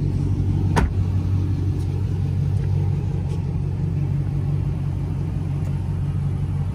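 2009 Dodge Charger SRT8's straight-piped 6.1 L Hemi V8 idling steadily with a deep, even exhaust note. A single sharp knock sounds about a second in.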